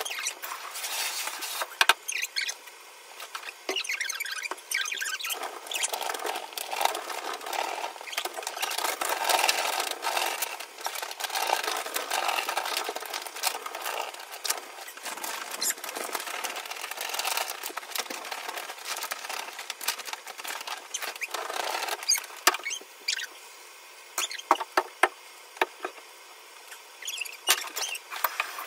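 Scouring pad scrubbing a soapy bathtub wall and rim, rubbing and squeaking in quick irregular strokes. It is densest through the middle. Near the end come a few sharp taps and knocks.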